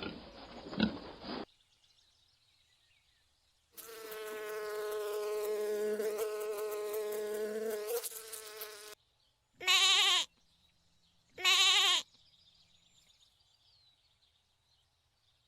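Sheep bleating: one long, steady bleat lasting about five seconds, then two short, quavering bleats about a second and a half apart. Before them, a noisy animal sound from the previous clip cuts off about a second and a half in, and a faint high insect-like hiss runs underneath.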